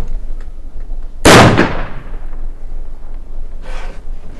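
A single revolver shot about a second in, sharp and loud, with a ringing tail that fades over about half a second.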